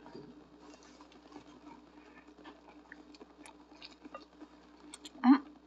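Eating sounds of a person biting into and chewing a toasted tortilla pizza burrito close to the microphone: faint scattered smacks and clicks, with one louder short sound about five seconds in. A faint steady hum lies underneath.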